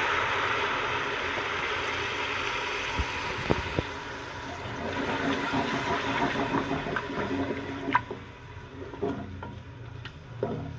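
Frying onion paste and ghee in a metal pressure cooker hissing and sizzling hard as the little water just added boils off into steam, the hiss slowly dying down. A wooden spoon stirs and knocks against the pot a few times.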